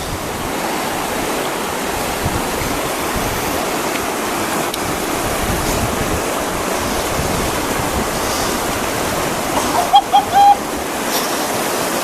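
A river flowing with a steady, even rush of water. About ten seconds in, three short chirping notes briefly rise above it.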